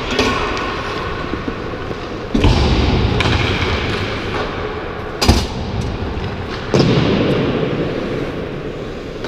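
Ice hockey skating noise close to a camera worn by the skater: scraping and rubbing that jumps up suddenly about two and a half seconds in and again near seven seconds, fading after each, with a sharp knock a little past five seconds.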